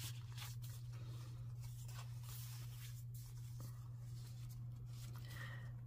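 Faint rustling and scraping of paper as tags are slid back into a paper pocket and a thick journal page is turned, over a steady low hum.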